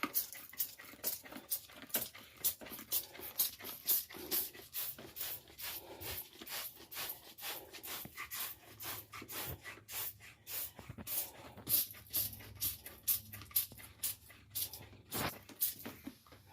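Hand-held trigger spray bottle squeezed over and over, a quick run of short hissing squirts at about three to four a second, soaking a surface with cleaner.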